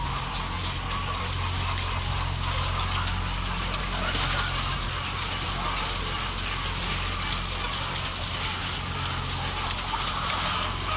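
Ambience of a caged layer-hen house: a steady low machine hum under a constant rushing noise, with the hens' chatter in it.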